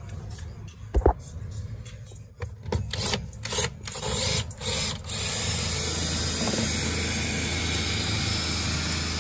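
Handheld power drill run in a series of short bursts, followed by a steady whirring noise from about halfway through. A single sharp knock comes about a second in.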